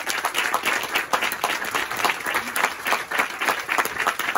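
A congregation applauding, many people clapping at once in a dense, even stream of claps.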